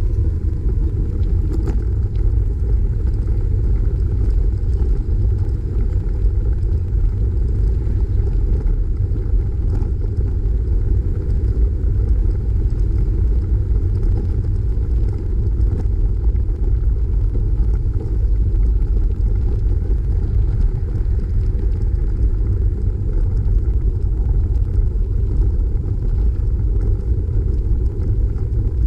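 Wind noise on the microphone of a camera carried on a moving bicycle: a steady, unbroken low rumble.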